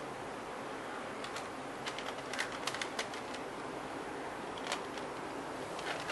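A cat crunching dry kibble from a plastic tray: irregular crisp clicks and crunches, bunched in the first half, with a few more later, over a steady low hiss.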